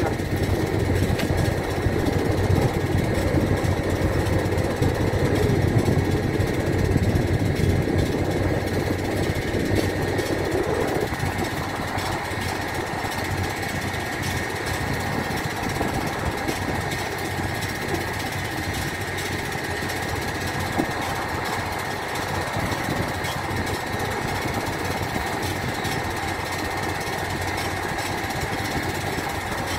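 Steady drone of running machinery with a thin high whine over a low rumble. It is a little louder for the first ten seconds or so, then settles slightly quieter and steady.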